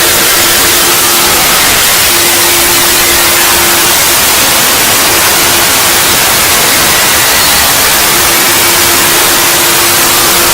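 Loud, steady static hiss, like white noise, with a faint low hum that comes and goes beneath it.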